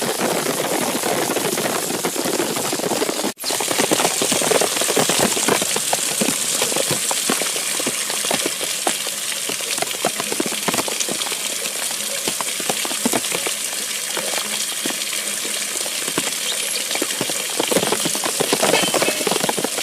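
Heavy rain falling steadily, a dense hiss full of small patters and drips, broken by a brief cut-out about three seconds in.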